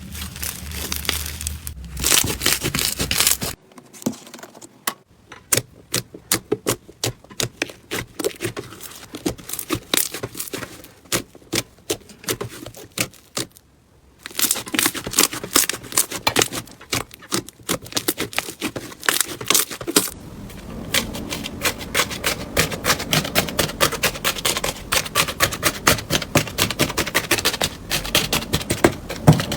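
Slime being squeezed and worked by hand, making dense runs of small clicks and crackles, in several short clips with abrupt changes between them. It goes quieter and sparser about four seconds in, drops out briefly around the middle, and turns into a thicker, steadier crackle after about twenty seconds.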